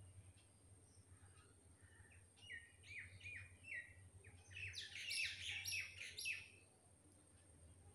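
Wild birds chirping: a run of quick, falling chirps begins about two and a half seconds in, crowds together and grows louder, then stops about a second and a half before the end, over a faint steady low hum.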